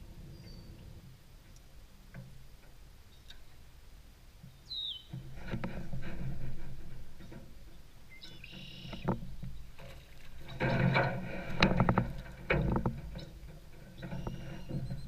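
Knocks, clicks and clatter of handling gear inside an aluminum canoe, growing busier after about five seconds and loudest around ten to thirteen seconds in, with a few short bird chirps in the first five seconds.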